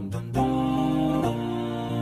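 Background music: held instrumental notes that change to new chords about every second.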